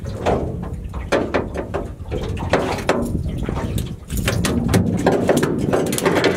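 Irregular knocks and scuffs of a small landed fish being handled and unhooked against the boat's deck and rail, over a steady low rumble of wind and water.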